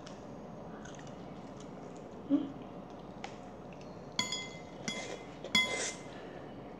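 A dull knock, then three ringing clinks of tableware about two-thirds of a second apart, like a utensil striking a dish or glass.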